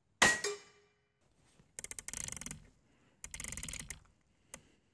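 A single sharp report with a brief ringing tail, the shot of a .30 calibre AGT Vulcan 3 PCP air rifle. It is followed by two short bursts of rapid mechanical clicking and one lone click near the end.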